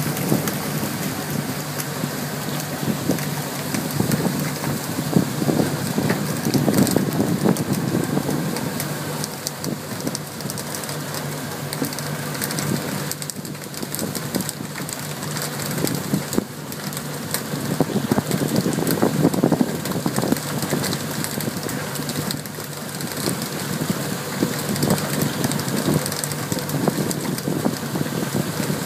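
Water spray and splashing on the sea surface beside a pole-and-line tuna boat, a steady rain-like hiss, over the low steady hum of the boat's engine.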